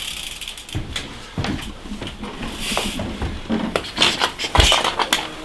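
Devinci Spartan mountain bike being pulled out from among other bikes and wheeled out of a wooden shed: irregular knocks, clatters and scuffs of the frame and wheels against bikes and boards, with a heavier thump about four and a half seconds in.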